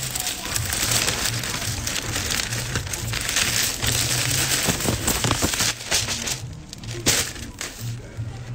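Large white plastic bag crinkling and rustling as it is handled and folded. The rustling thins out after about six seconds, with one more rustle a second later. Background music with a low beat runs underneath.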